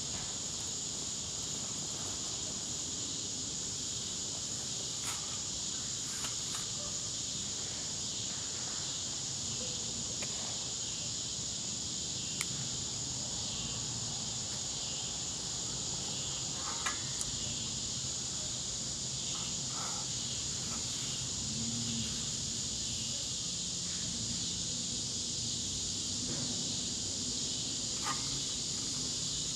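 Steady, high-pitched insect chorus droning without a break, with a few faint ticks now and then.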